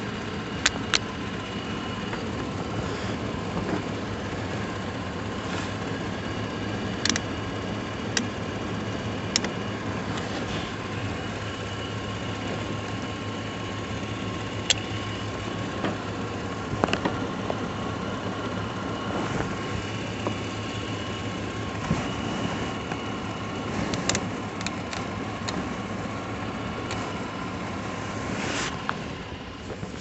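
Vehicle engine idling steadily, with a constant high whine over the low hum and a few sharp clicks and knocks scattered through.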